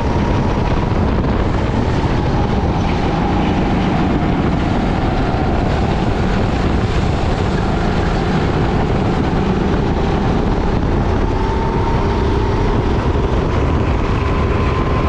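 Sodi kart's engine at race pace, heard from an onboard camera with heavy wind noise. The engine note dips through a corner around the middle and climbs again as the kart accelerates out.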